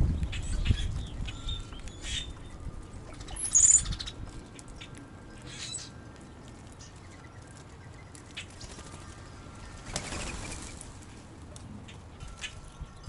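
Birds' wings flapping in short flurries as they take off and land, the longest about ten seconds in. Short chirps are scattered throughout, and a sharp, high, falling call comes about three and a half seconds in.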